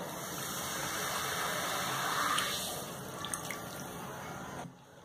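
Cola being poured from a plastic bottle into a measuring cup, a steady pouring and fizzing that builds to its loudest about two and a half seconds in, then goes on more quietly.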